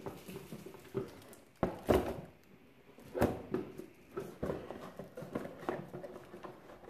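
Cardboard board-game box insert and card decks being handled: about five light knocks of cardboard on cardboard, with soft scraping and rustling between them.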